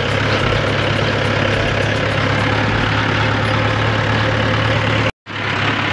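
Mahindra tractor's diesel engine running steadily as the tractor drives along, heard up close from the seat beside the bonnet. The sound cuts out for a moment about five seconds in.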